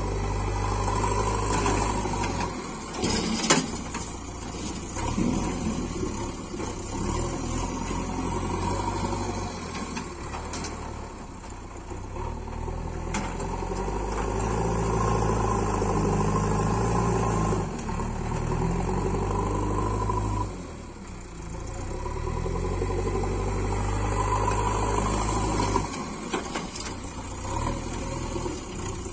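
JCB 3DX backhoe loader's diesel engine running under load, revving up and easing off repeatedly as the machine drives and manoeuvres with a full front bucket. A single sharp knock comes about three and a half seconds in.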